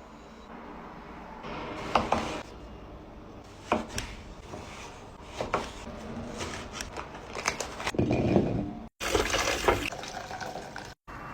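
Kitchen cooking sounds: liquid being poured and splashing into a pot, with several sharp clinks and knocks of utensils against cookware. The sound breaks off abruptly about nine seconds in and again near the end.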